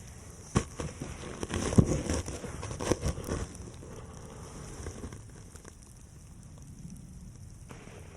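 Close rustling and crackling with a few sharp knocks over the first few seconds, then a soft steady hiss.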